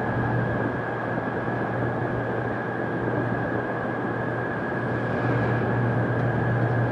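Steady hiss of an air traffic control radio feed between transmissions, with a faint constant whistle-like tone and a low hum underneath.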